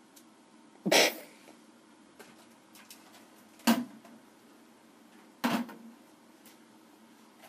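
Three loud thumps, about a second, nearly four seconds and five and a half seconds in, each dying away quickly, with a few faint clicks between them.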